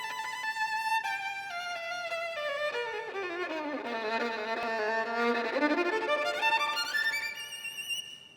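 Solo violin playing with vibrato: a run that descends to the bottom of the instrument's range, then climbs back up to high notes and fades out near the end.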